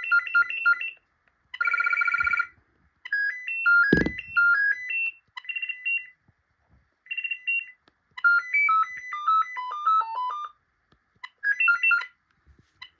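BT Concero 1400 cordless phone base station playing its electronic ringtones one after another: short bleeping melodies with pauses between them, one a fast trill and another a falling run of notes. There is a sharp click about four seconds in.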